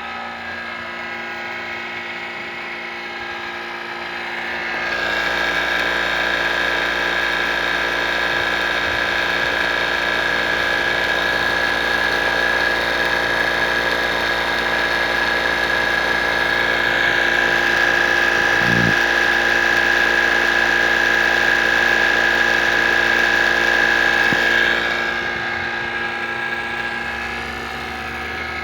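Vacuum pump running steadily with a high whine, growing louder about five seconds in and easing back near the end.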